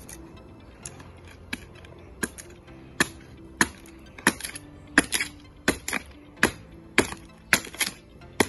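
Machete chopping dry bamboo into kindling: a few light chops at first, then sharp, cracking chops at a steady pace of about three every two seconds.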